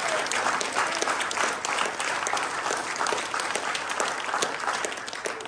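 Church congregation applauding, a dense clatter of many hands clapping that gradually dies away near the end.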